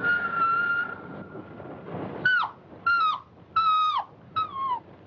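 A dog whining: one long, high, drawn-out whine that fades in the first second and a half, then four short whimpers, each dropping in pitch at the end. The whining is taken as the dog sensing something evil.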